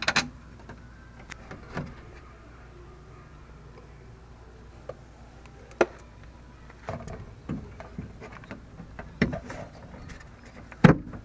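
Scattered clicks and knocks of metal and plastic parts being handled and worked inside a car door, with a low steady hum underneath.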